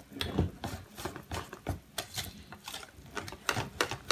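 Wire whisk beating thick pancake batter in a stainless steel bowl: quick, uneven clicks and scrapes of the wires against the metal, about four strokes a second.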